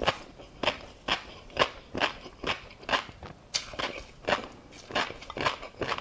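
Close-miked chewing of a mouthful of tobiko (flying fish roe) with crunchy seafood topping: crisp crunching and popping strokes, about two a second.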